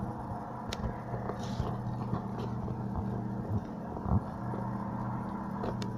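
Steady low droning hum with several level tones, like a distant engine, that the filmer takes for aeroplanes or helicopters that cannot be seen. A few soft knocks sound over it.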